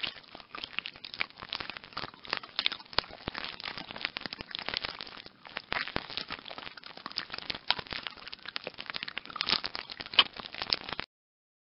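Dense, irregular crackling and clicking, a rapid patter of sharp snaps that stops suddenly near the end, added as the sound of a tiger moth.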